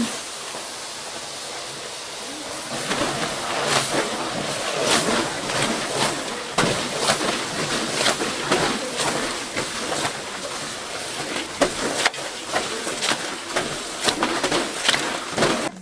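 Wet rag mop on a long wooden pole swabbing the hot stone hearth of a wood-fired bread oven: repeated swishing, scraping strokes over a steady hiss as the wet cloth steams on the hot floor. This is the swabbing-out of ash and embers before the loaves go in.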